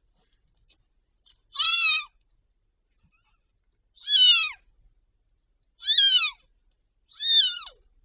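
Newborn kitten mewing: four high, thin mews, each falling in pitch, spaced about one and a half to two and a half seconds apart.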